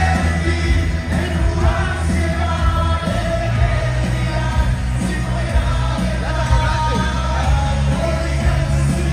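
Male pop vocal group singing live into microphones over loud amplified backing music with a steady heavy bass.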